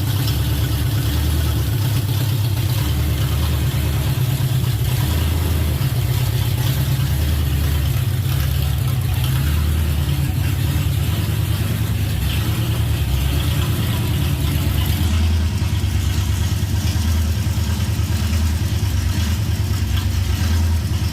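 307 V8 engine running at idle with a steady, slightly uneven low beat. It doesn't run quite smooth, which the owner puts down to the carburettor mixture screws.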